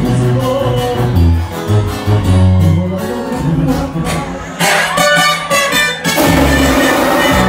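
Regional Mexican band music with strummed acoustic guitar and a deep bass line. The music changes abruptly about six seconds in.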